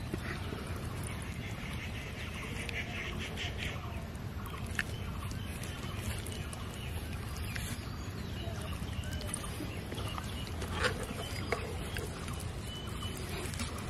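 Faint outdoor background with soft animal calls, like a duck quacking, for a couple of seconds near the start, and a few small clicks later on.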